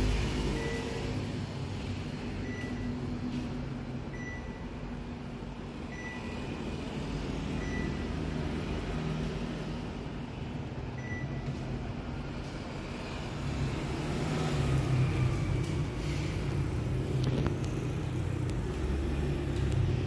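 Panasonic CS-S10HKP inverter split air conditioner indoor unit running with a steady low rumble, noisy because its blower is stuck. About six short high beeps sound over the first half, one every second or two, as the unit accepts remote commands.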